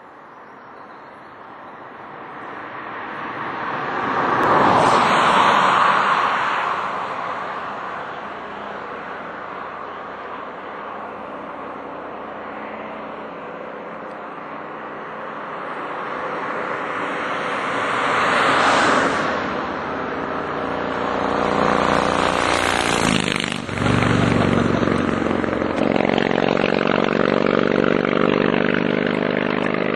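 Vehicles passing on a road: tyre and road noise swells and fades twice. Then, from about two-thirds of the way in, a Harley-Davidson motorcycle's V-twin engine is heard running steadily as it passes, with a clear pitched engine note.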